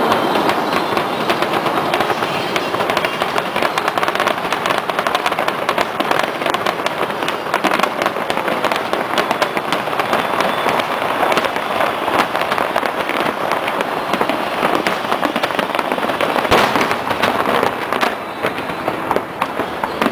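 Large fireworks display: dense, continuous crackling and popping from many shells going off in quick succession, with one sharper, louder bang about three-quarters of the way through.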